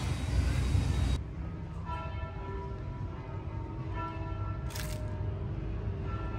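Bells ringing, with a new stroke about every two seconds and each tone ringing on as it fades. Steady outdoor background noise cuts off sharply about a second in, before the bells start.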